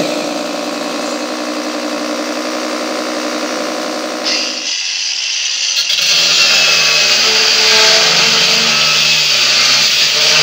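A cordless drill runs steadily for about four and a half seconds, boring into the floor. After a short break, an angle grinder cuts through a metal rod, a loud, high, hissing grind over the motor's hum.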